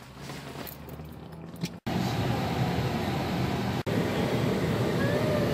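Steady car cabin noise, the engine running, heard from inside the car; it jumps louder about two seconds in.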